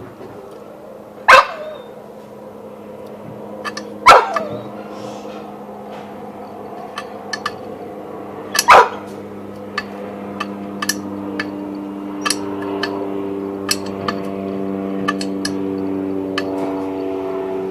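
A dog barks three times, loud and sharp, a few seconds apart, over a steady hum. Light irregular clicking runs underneath in the second half.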